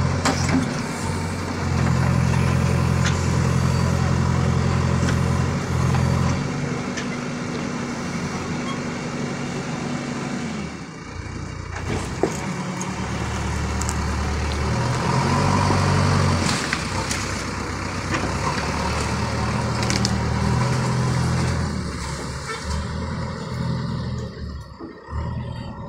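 JCB backhoe loader's diesel engine running under changing load as the backhoe digs soil, its pitch rising and falling with the hydraulic work. A sharp knock comes about twelve seconds in.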